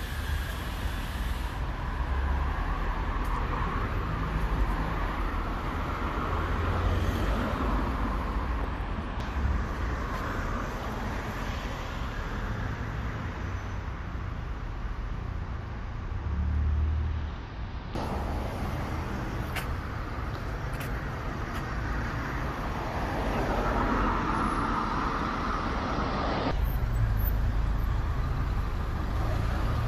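Road traffic noise from a queue of cars and passing vehicles: a steady hum of engines and tyres with a low rumble.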